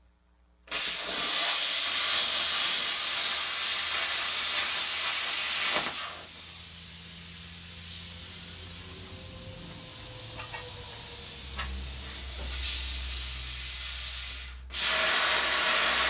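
Plasma cutter cutting through the steel C-channel frame rail of a car: a loud steady hiss starting about a second in, dropping to a quieter hiss through the middle while the cut pauses, then the loud cutting hiss again near the end.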